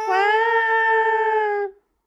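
Cat giving one long, drawn-out meow that slides up in pitch as it starts, holds steady, and stops shortly before the end.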